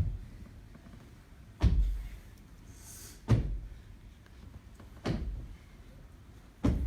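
Five heavy, low thuds, evenly spaced about every second and a half, each dying away briefly.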